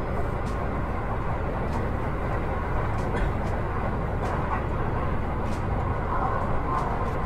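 Kintetsu commuter train running at speed, heard from inside the carriage: a steady low rumble of wheels on rails, with faint ticks about once a second.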